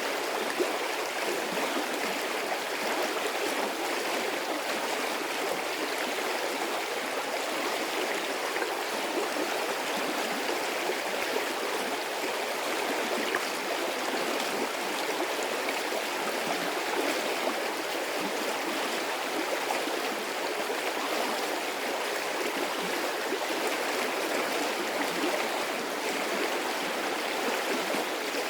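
Medium-sized stream of running water, a steady, even rush and babble that neither builds nor fades.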